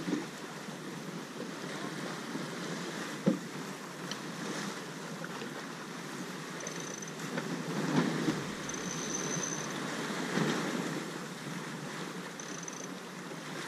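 Water rushing past the hull of a J/111 racing sailboat under sail, with wind on the microphone; the water surges louder about eight and ten seconds in as waves pass, and a single sharp knock sounds about three seconds in.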